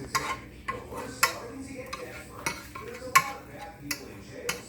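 A utensil clicking and scraping against a frying pan while butter is spread around it, about seven sharp knocks at uneven intervals.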